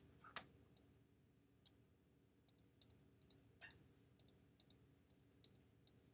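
Faint computer mouse clicks, about a dozen short clicks spaced irregularly, some in quick pairs.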